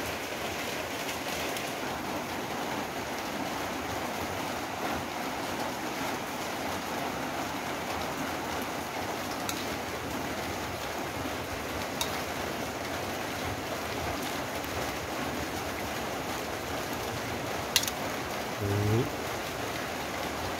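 Steady rain falling, an even patter through the whole stretch. A few sharp clicks of a spoon against the stainless steel mixing bowl, the loudest near the end.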